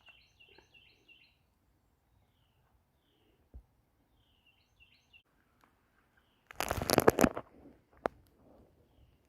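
A small bird chirps in quick repeated notes, twice, with quiet stream-side background between. About two-thirds of the way through comes the loudest sound: a brief loud burst of noise lasting under a second, then a single sharp click.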